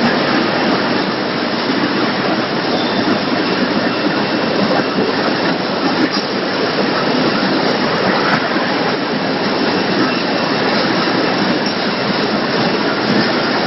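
Loud, steady machinery noise of an automatic poultry slaughter and processing line running: an even din with no clear rhythm.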